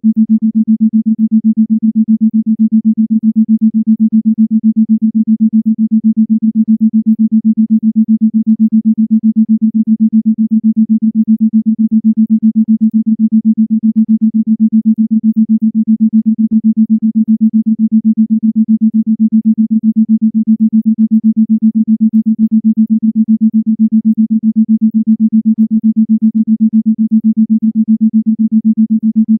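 Isochronic tone: a single low, pure tone pulsing on and off rapidly and evenly, many times a second, without a break.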